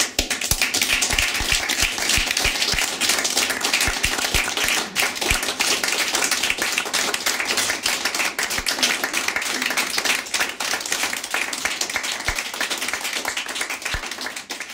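Applause: many hands clapping in a dense, steady patter that tapers off toward the end.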